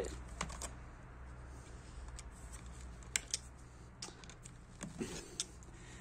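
Irregular light clicks and taps as copper tie-wires and granular substrate are worked by hand in a plastic bonsai pot.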